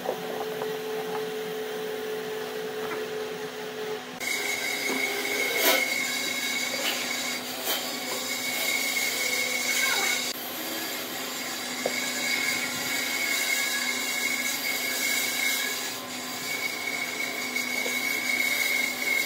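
Steady machine hum with a steady high whine, broken by a few sharp knocks and clicks from handling things on a wooden workbench. The sound changes abruptly about four seconds in.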